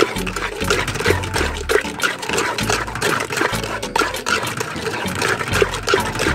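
A metal spoon stirring runny cornmeal pudding batter in an aluminium pot: wet sloshing and slapping of the batter with quick, irregular clicks of the spoon against the pot.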